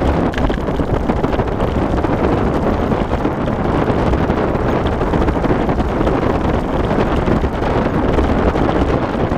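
Steady wind buffeting the microphone over a low, even rumble of movement, as from a dog team's rig rolling along the trail, with faint scattered ticks.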